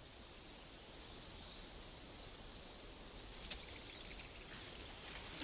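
Faint grassland ambience: a steady high-pitched insect drone over a low background hiss, with a single faint click about three and a half seconds in.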